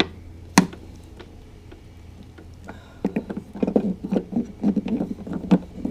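Sharp plastic clicks from headlight parts being handled: one click at the start and another just after, then a quick run of small clicks, taps and rattles over the last few seconds. A steady low hum runs underneath.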